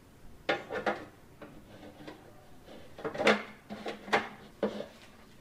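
Clear plastic kitchenware being handled and set down on a counter while it is put away: a series of sharp knocks and clatters, about five in all, the loudest about three seconds in.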